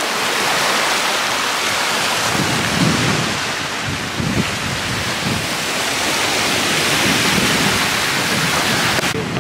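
Strong wind buffeting the microphone in irregular low gusts from about two seconds in, over a steady hiss of wind and small waves lapping against shore rocks.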